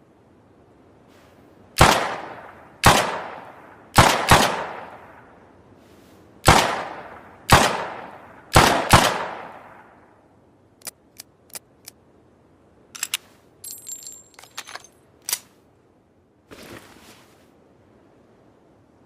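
Makeshift revolver sound effect: eight sharp gunshot-like bangs, each with a long ringing tail, some coming singly and some in quick pairs. After them come four light clicks and a short metallic clinking and jingling.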